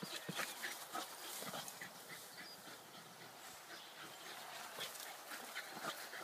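Small Lakeland–Jack Russell cross terrier making short, faint, scattered dog sounds as it noses a football across grass.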